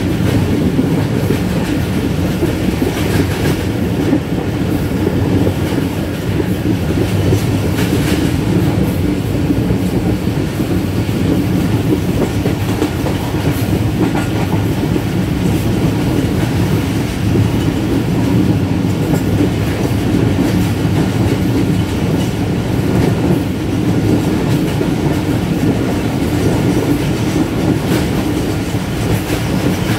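A train running along the track: a steady low rumble with a few faint clicks now and then.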